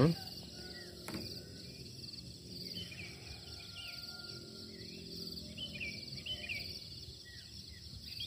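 Insects trilling in a steady pulsing band, with birds calling in short chirping notes here and there. A short knock right at the start and a fainter one about a second in.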